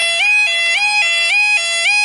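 Level crossing yodel alarm: a two-tone warble that switches between a lower and a higher pitch about twice a second, warning that the barriers are lowering for an approaching train.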